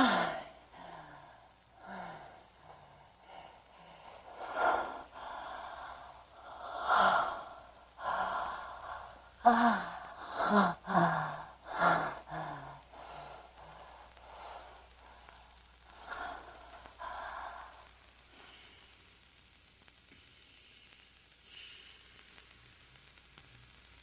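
A person's voice making a run of short sighs and gasping breaths, each falling in pitch, dying away after about eighteen seconds into faint hiss.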